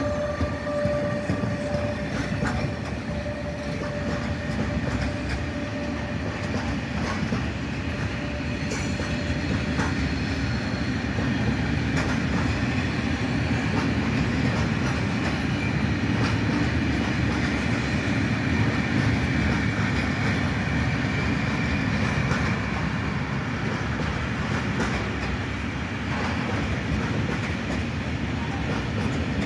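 Freight train of Eas open wagons behind a Traxx electric locomotive rolling past, a steady heavy rumble with wheels clicking over rail joints. A steady whine-like tone fades out in the first ten seconds or so.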